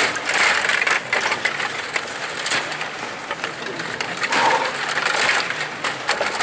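Stiga table hockey game in fast play: rods sliding and spinning and plastic players clattering against the puck and the boards, a dense run of sharp clacks with louder rattling flurries.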